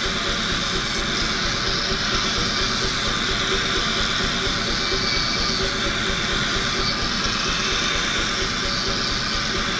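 Forging equipment running with a steady roar and a fast low rumble beneath it.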